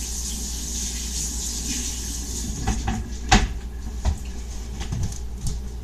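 A few light knocks and clunks of household objects being set down and moved, the loudest about three seconds in, over a steady low hum.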